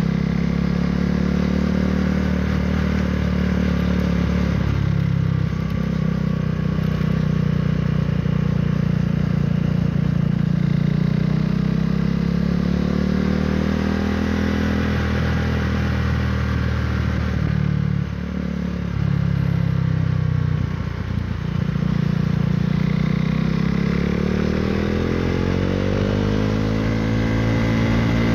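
KTM Duke 390's single-cylinder engine through an Akrapovic Racing Line exhaust, under way with the revs rising and falling. The engine note drops off briefly twice past the middle, then climbs steadily in revs near the end as the bike draws alongside a truck.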